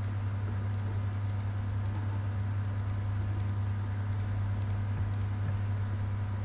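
Steady low electrical hum on the microphone, with a series of faint computer-mouse clicks, many in quick pairs, as items are picked in a list.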